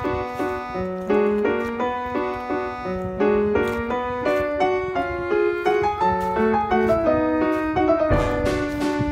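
Light classical background music led by piano, a quick run of notes in a bright waltz-like style.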